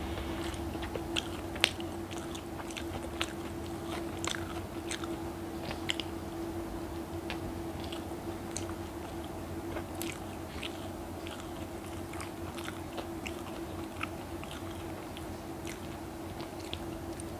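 Close-miked biting and chewing of spicy egg toast: irregular crunches and mouth clicks, busiest in the first six seconds, over a steady hum.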